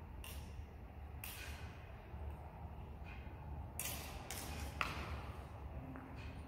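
Rapier-and-dagger sparring: several short scuffs and rushes of footwork on a dirt floor, with one sharp click of contact, the loudest sound, a little under five seconds in, over a faint steady low rumble.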